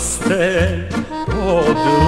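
Instrumental passage of a 1970s Serbian folk song: an accordion plays a wavering, ornamented melody over repeated bass notes and rhythm backing.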